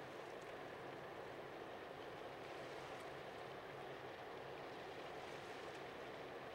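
Faint, steady drone of a passing container ship and its escort tug heard across the water, mixed with an even hiss of water and air.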